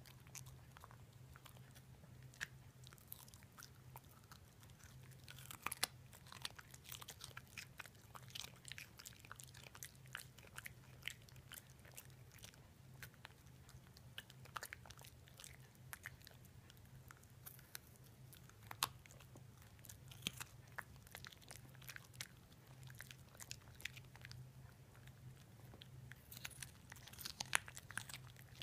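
A puppy crunching and chewing a baby carrot: many sharp, irregular crunches, in clusters, over a steady low hum.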